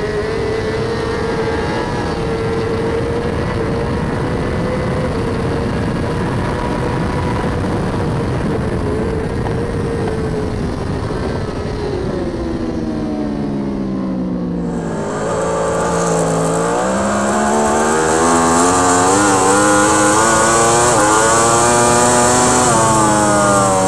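Onboard sound of racing superbikes at speed. At first one engine is held high at near-steady revs, then its revs fall away for several seconds as it slows. The sound then switches to a second bike, a Yamaha R1 superbike, whose engine climbs hard through several upshifts before easing off near the end.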